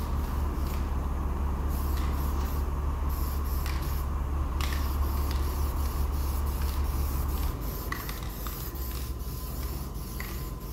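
Aerosol can of primer hissing in repeated short bursts as it is sprayed onto a bus body panel. Beneath it runs a steady low hum that drops away about three-quarters of the way through.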